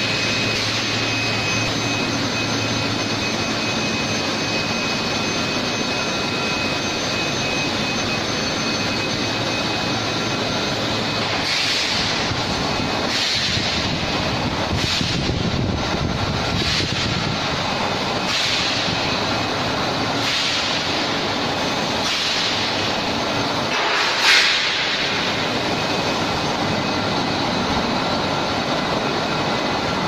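Steady industrial noise of an induction bar hardening and tempering line running, with a faint steady high tone. From about twelve seconds in, short hissing swells recur every second or two, the strongest a little past halfway.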